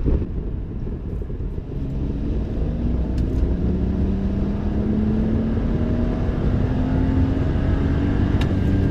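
BMW F30 335i's turbocharged straight-six and exhaust under hard acceleration in one gear, the engine note climbing steadily toward about 6000 rpm.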